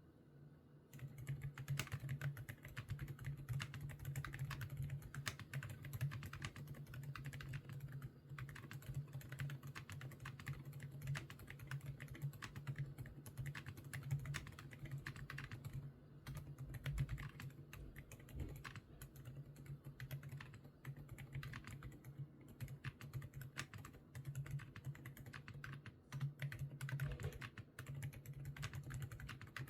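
Mechanical keyboard fitted with Outemu Banana Green switches, typed on continuously: rapid key clicks that begin about a second in, with a few brief lulls.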